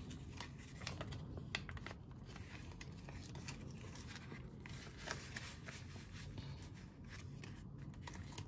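Faint rustling and crinkling of a paper banknote and a plastic zip envelope being handled, with scattered small clicks.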